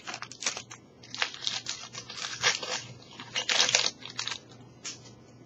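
Foil wrapper of a Pokémon trading-card booster pack crinkling and tearing open in an irregular run of crackles, loudest about three and a half seconds in.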